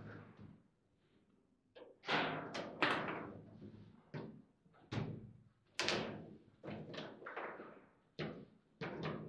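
Foosball table in play: the ball struck by the players' figures and clacking against rods and table walls. About a dozen sharp knocks come at irregular spacing after a brief pause about a second in.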